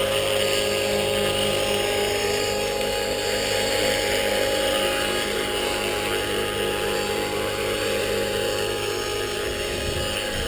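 Align T-Rex 450 Pro electric radio-controlled helicopter in an EC135 scale fuselage flying: a steady whine from its brushless motor and gears over the rush of the spinning rotor blades.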